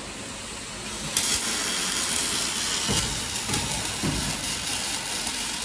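Robot welding arc striking about a second in, then a steady hissing sizzle over the factory's background hum.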